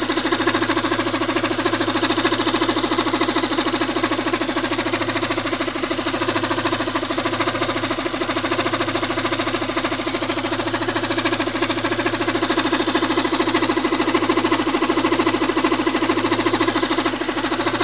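Car engine running at idle with a fast, even knocking from the timing belt drive; the owner traces the knock to the timing belt tensioner pulley, which quiets when the pulley is held down.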